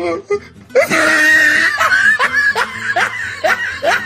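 Comic laughing sound effect with music, dubbed in, starting after a short pause about a second in: a run of short rising laughing notes, about three a second.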